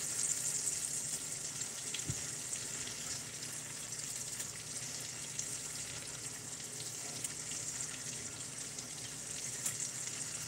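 Crappie and bluegill fillets sizzling steadily as they pan-fry in a skillet, with a few faint ticks now and then.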